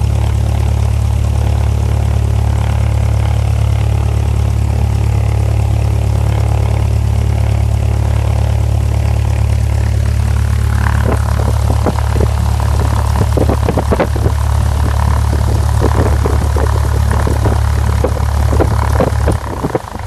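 Single-engine propeller aircraft's engine idling, heard from inside the cabin as a steady low drone, with scattered clicks and rattles from about halfway through. Near the end the drone cuts out as the engine is shut down.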